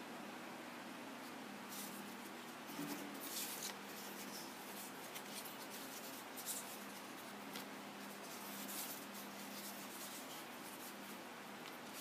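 Hands handling a foam-lined earphone carrying case and its cardboard packaging: scattered scraping and rustling, busiest a couple of seconds in and again around the middle, over a steady hiss and faint hum.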